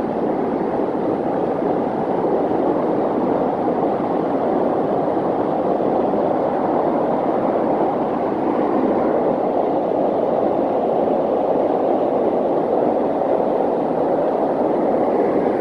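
Waterfall: a steady, unbroken rush of falling water, with its deepest weight in the low-middle range.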